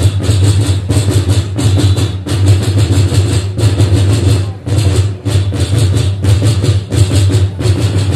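The big drums of a Romanian bear-dance troupe beating fast and without pause, over a deep steady booming.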